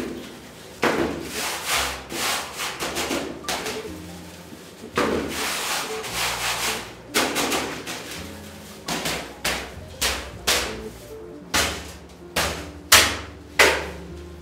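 Black powder rocket fuel being rubbed through a round mesh sieve by a gloved hand: repeated rubbing strokes of uneven length, with a few sharper knocks among them.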